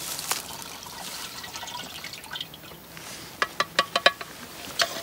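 Herbicide solution being poured from a container into a garden sprayer tank, trickling and dripping. A quick run of about five sharp clicks comes a little past halfway, and one more near the end.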